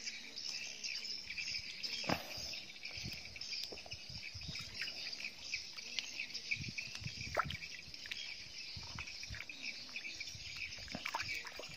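Steady chirring insect chorus, with scattered small splashes and knocks from a cleaned giant freshwater prawn being rinsed by hand in river water.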